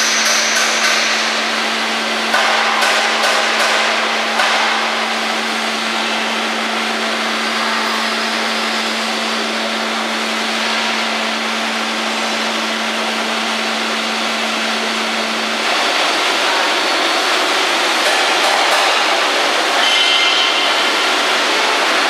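Filter press plate shifter moving the filter plates, with clusters of knocks as plates strike one another over steady machinery noise. A low steady hum cuts off about fifteen seconds in.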